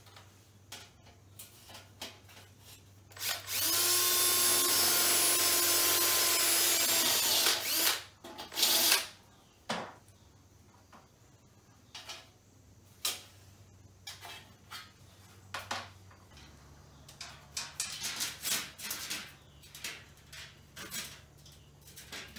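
Handheld power drill running steadily for about four seconds, winding down as it stops, followed by scattered clicks and knocks of handling.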